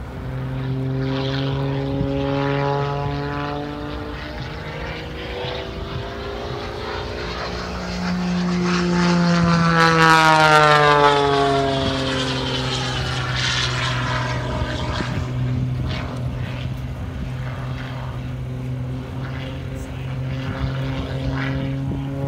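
Red aerobatic biplane's propeller engine running through manoeuvres overhead, its pitch rising and falling as it climbs and dives. It is loudest about halfway through, where the pitch drops as the plane passes.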